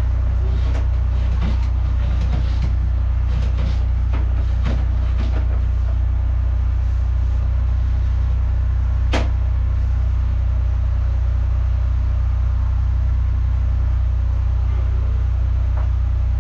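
Engine running steadily with a loud, even low drone, with a few scattered clicks and knocks in the first seconds and one sharp click about nine seconds in.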